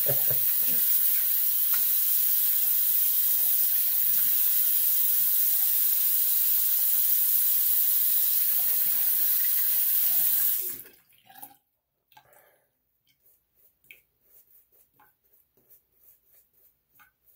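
Bathroom sink tap running steadily into the basin, shut off abruptly about eleven seconds in. After that, only faint soft rubbing of a shaving brush working lather on the face.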